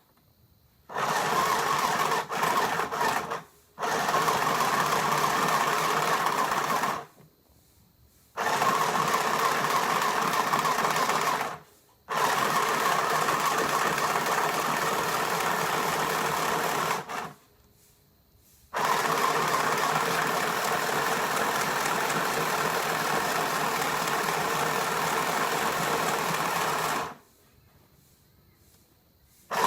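Portable mini sewing machine running in spurts of a few seconds each, with a steady whirring stitch sound. It stops and starts again about five times, with short pauses between runs.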